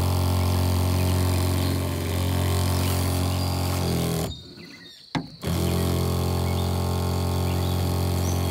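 Pressure washer's small engine running steadily while the spray wand blasts water into the pond. The sound drops out for about a second a little past the middle, with a single click, then comes back.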